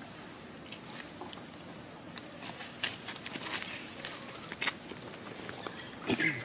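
Insects droning steadily at a high pitch, stepping up slightly about two seconds in, with scattered faint clicks and rustles. A brief cry near the end.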